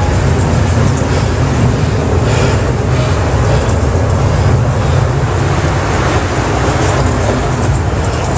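Strong wind buffeting the microphone: a loud, steady rushing roar that is heaviest in the low end.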